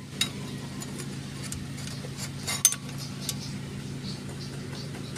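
Light metallic clinks of bicycle headset bearing parts being handled and fitted onto a greased head tube, a few separate clicks with the loudest about two and a half seconds in. A steady low hum runs underneath.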